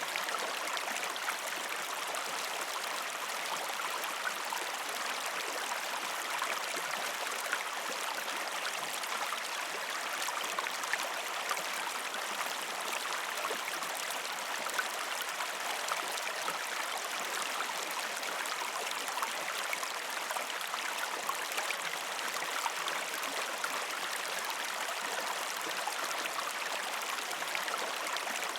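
A gentle river stream flowing over rocks: a steady rush of water with fine babbling and small splashes all through.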